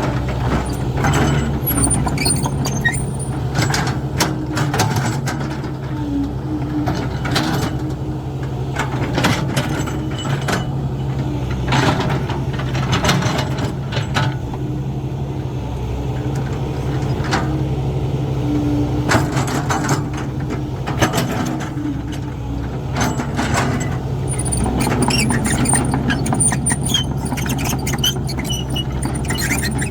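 Caterpillar 312 hydraulic excavator's diesel engine running steadily under load, with repeated clanks and knocks as the bucket works and soil drops into a truck bed. A thin high squeal comes in near the start and again near the end.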